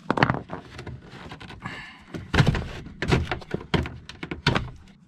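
Irregular knocks and clunks as the old WF-8955 converter section and its wiring are pulled down and out of an RV power-center cabinet.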